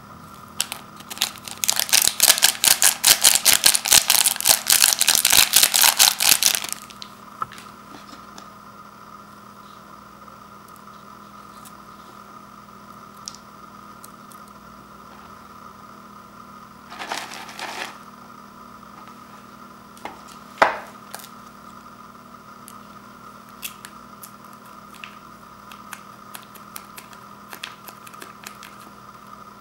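Paper instant-noodle bowl shaken rapidly for about six seconds, the dry noodle block and dried vegetable flakes rattling inside. Then quieter handling, with a short rustle and one sharp click.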